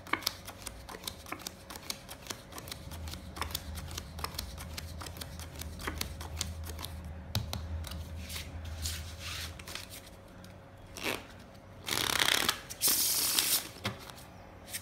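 Playing cards being handled and dealt onto a felt table: many light, quick card snaps and slides, then, about twelve seconds in, the deck being shuffled, the loudest sound, lasting a second or two.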